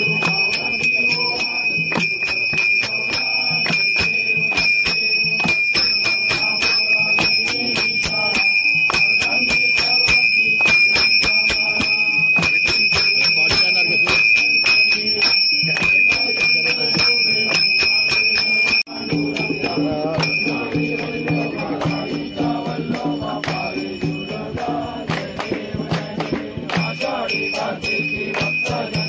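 Aarti being performed: a hand bell rung continuously over rhythmic hand clapping and group singing. The sound cuts out briefly about two-thirds of the way through, then carries on.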